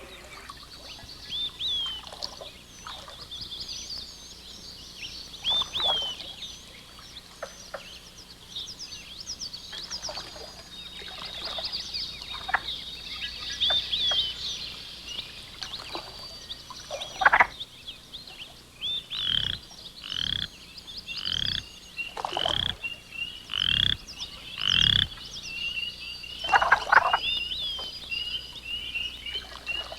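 A chorus of frogs calling: many short, high, chirping calls overlapping throughout, with a run of louder calls about a second apart past the middle.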